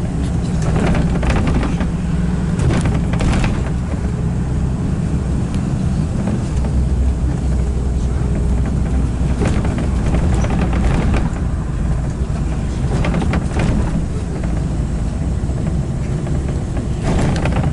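Moving road vehicle with a steady low rumble, level throughout, and scattered brief higher noises now and then.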